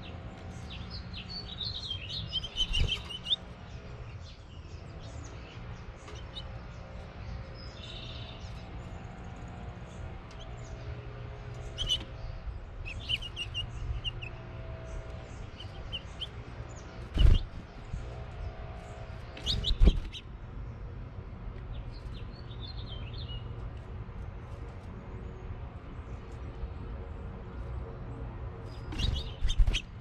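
House finches chirping in short, scattered calls, with a few sharp thumps, two in the middle and more near the end, over a steady low hum.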